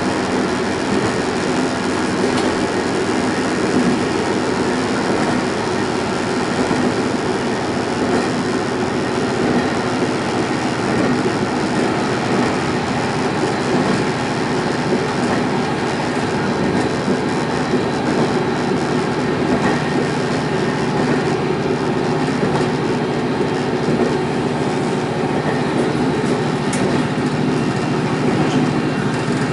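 Single-car diesel railcar running steadily along the line: a continuous engine drone under the rumble of wheels on rails.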